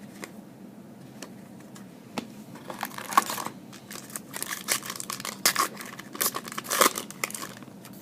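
Trading card pack wrapper being torn open and crinkled by hand: a few faint clicks, then a run of crackling and tearing for about five seconds.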